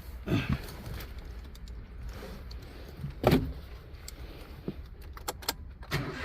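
Car keys jangling with scattered clicks and knocks as the key is handled at the ignition, with louder knocks near the start and about three seconds in and a quick run of clicks near the end.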